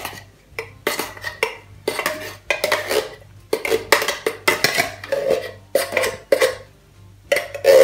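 Metal spoon scraping and clinking against a tin can and an enamel pot as chili kidney beans are spooned out of the can, in a quick, irregular run of clinks and scrapes.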